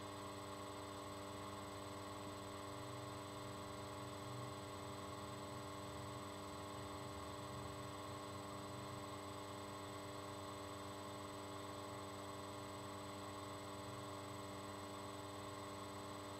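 Steady electrical hum and whine, several fixed tones over a faint hiss, unchanging throughout.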